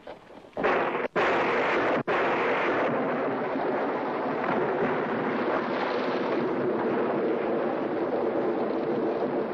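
Storm of wind and heavy rain, a loud steady rush that sets in suddenly about half a second in.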